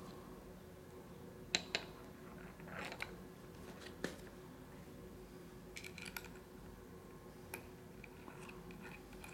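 Faint, scattered clicks and taps of stainless steel glass balcony clamp parts being handled and fitted together by hand. There are a handful of short metal-on-metal knocks a second or so apart.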